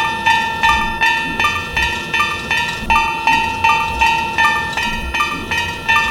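Japanese railroad crossing warning bell ringing steadily, a bright metallic strike nearly three times a second.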